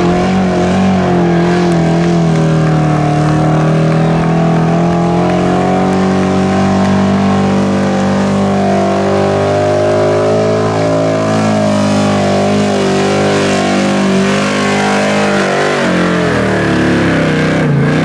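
Chevrolet pickup's small-block V8 running at sustained full throttle under heavy load while pulling a weight-transfer sled. Its pitch wavers slightly throughout and sags near the end.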